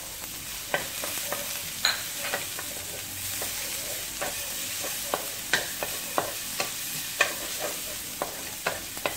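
Minced garlic sizzling in hot olive oil in a metal wok, with a steady hiss, while a wooden spatula stirring it scrapes and taps against the pan in irregular clicks.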